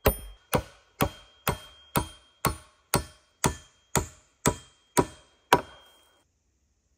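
Steady blows of a hand tool chopping into wood, about two a second, a dozen strikes in all, then they stop.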